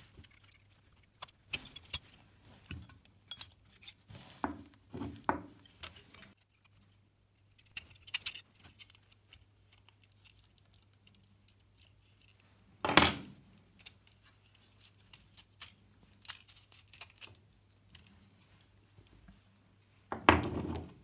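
Knife blade prying and scraping the nickel tabs off 18650 lithium-ion cells in a Makita BL1830 battery pack, with irregular metallic clicks, clinks and scrapes. Two louder clatters stand out, about 13 seconds in and near the end.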